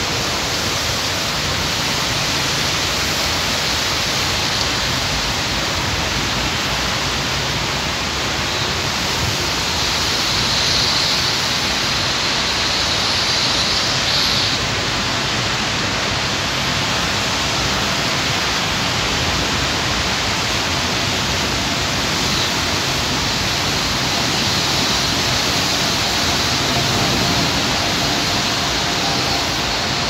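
Heavy rain falling steadily, a dense, even hiss.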